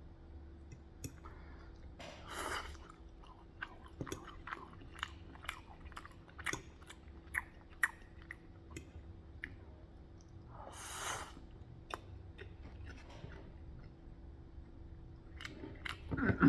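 A person chewing and eating with the mouth close to the microphone: irregular small wet clicks and smacks, with two longer noisy swallows or sips, one about two seconds in and one near the middle.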